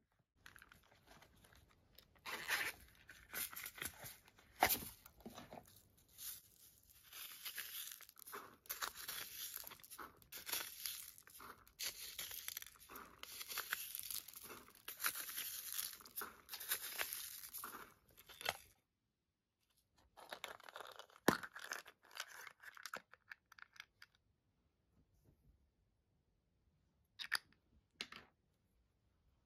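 Plastic spoon scooping foam beads and sprinkles and scattering them into a glass dish of slime clay, a crackly rustling that comes in patches. It stops, comes back in a shorter patch, and there are a couple of sharp clicks near the end.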